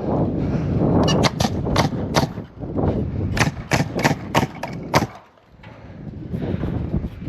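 Nails being driven into timber roof framing: a string of sharp strikes, a few at first and then a quicker run of about six, over a steady low rumble.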